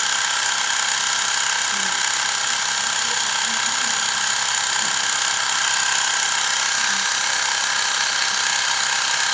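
Xiaomi Mi Portable Electric Air Compressor running steadily in its ball preset, pumping up a ball with a continuous high-pitched motor whine.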